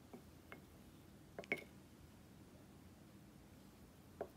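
A wooden spoon knocking against a ceramic soup mug while scooping corn soup: a few light, short clicks, the sharpest about a second and a half in, against an otherwise near-silent background.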